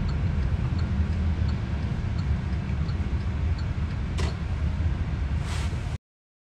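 Steady low rumble of a car heard from inside its cabin, with two short swishes near the end, then the sound cuts off suddenly.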